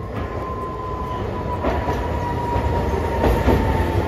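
Hiroden 'Green Liner' articulated streetcar running past close by: a rumble of steel wheels on the rails that grows louder as it nears. Over it sits a steady whine that slides slightly lower in pitch, with a couple of knocks as the wheels cross the rail joints.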